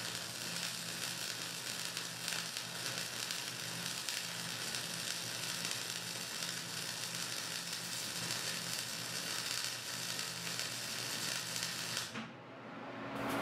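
MIG/MAG (GMAW) welding arc burning steadily, an even hiss across the whole range, as the torch weaves a spiral oscillation along the bead. The arc cuts off near the end.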